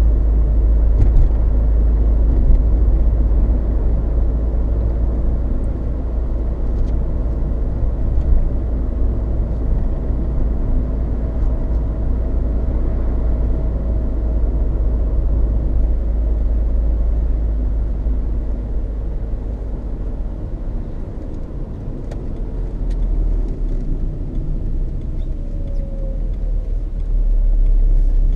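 Tyre and road noise inside the cabin of a moving Peugeot 306 2.0 HDi: a steady low rumble and roar from its Dunlop Sport BluResponse tyres, easing slightly for a few seconds past the middle. The owner calls it really loud road noise and wonders whether it comes from tread wear, since bearings, suspension, balancing and alignment have been checked.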